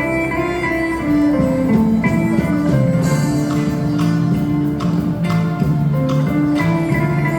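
A small instrumental group plays a live arrangement of Brazilian popular music: a plucked guitar carries a clear stepwise melody of held notes over a steady bass.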